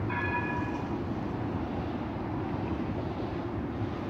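Steady low rumble of city road traffic, with one short pitched beep lasting under a second near the start.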